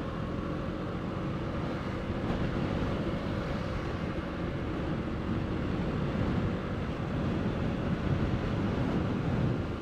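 Motorcycle riding at a steady speed: engine running evenly under a wash of wind noise on the microphone.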